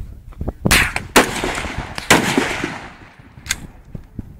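Three loud gunshots, the second about half a second after the first and the third about a second later, each trailing off in a short echo; a fainter sharp crack comes near the end.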